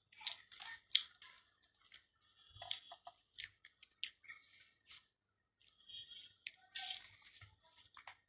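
Close-up mouth sounds of a person eating: wet smacks and clicks of the lips and tongue while chewing, coming in irregular clusters.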